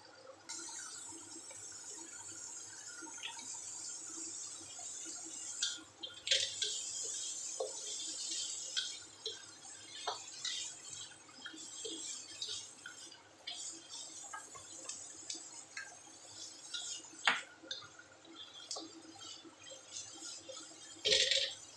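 Chopped tomatoes and onions sizzling in oil in a wok, with the hiss picking up about half a second in. A plastic spatula scrapes and taps against the pan as the vegetables are stirred, with a brief louder scrape near the end.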